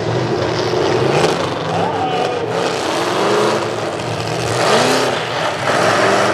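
Demolition derby pickup trucks' engines running hard at high throttle, several revving up in rising surges.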